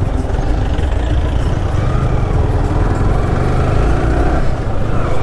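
Motorcycle running at road speed, heard from the rider's position, with a steady low wind rumble on the microphone.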